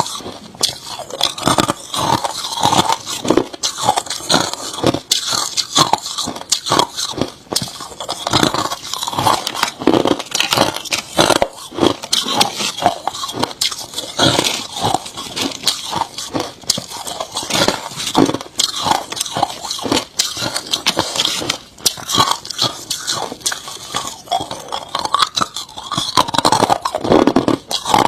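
Hard crushed ice being bitten and chewed: a continuous run of sharp, irregular crunches.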